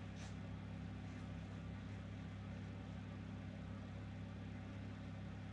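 Electric oven running with a steady low hum.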